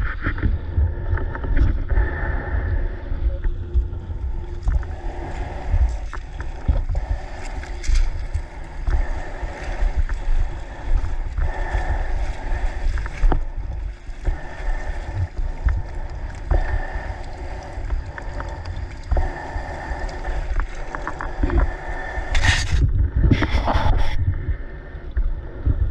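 Small Mercury 9.9 outboard motor running on a jon boat, mixed with wind buffeting the microphone and water splashing against the hull. A few sharper bursts come near the end.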